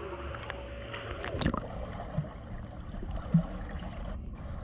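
Pool water sloshing and gurgling around the camera's microphone, which goes muffled as it dips under the surface about a second and a half in. Two short low bubbly pops follow underwater.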